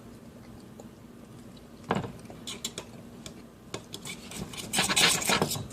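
A dull table knife clinking and scraping against a dish while cutting a burrito: a sharp knock about two seconds in, scattered clicks, then a burst of scraping and clatter near the end.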